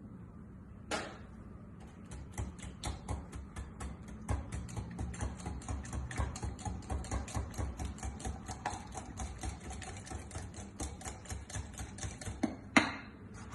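An egg cracked sharply on a bowl, then a utensil beating it into a thick chocolate and mascarpone batter, clicking against the bowl about four times a second; a second egg is cracked near the end.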